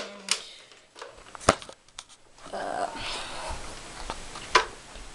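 Handling noise: a few sharp clicks and knocks, the loudest about a second and a half in and another near the end, with soft rustling between them as the toy blaster and camera are moved.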